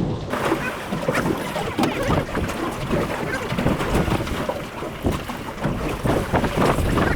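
Wind buffeting the microphone, with water splashing and slapping around a boat at sea.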